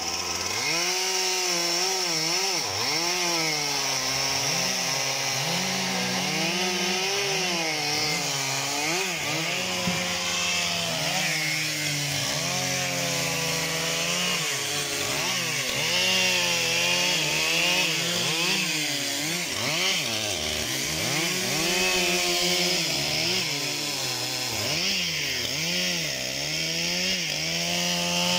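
Stihl MS 362 two-stroke chainsaw cutting through logs, its engine pitch repeatedly dipping as the chain bites into the wood and climbing back up between cuts.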